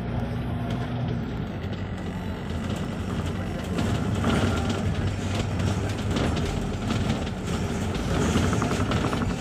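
Double-decker bus running, heard from inside the bus: a steady engine hum with road noise and rattling from the body. The noise grows louder from about four seconds in.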